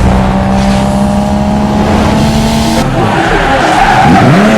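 Loud car engine running at steady revs. The sound changes about three seconds in, and near the end the pitch dips and rises again.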